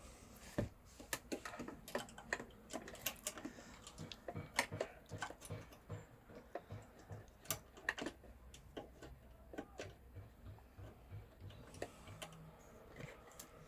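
Irregular sharp clicks and taps, several a second, like small hard objects being handled or tapped.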